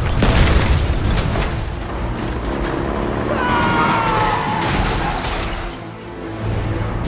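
Background music with cartoon-style sound effects: an impact near the start and a falling two-tone glide about three and a half seconds in.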